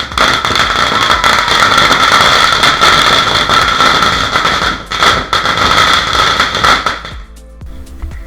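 A string of firecrackers going off in rapid, dense crackling over a steady high-pitched whistle, stopping abruptly about seven seconds in.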